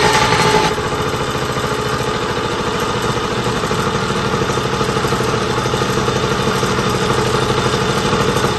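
Yamaha PW50's small two-stroke single-cylinder engine running. It eases off from a rev about a second in and settles to a steady idle. The engine has just been started after sitting unused for years.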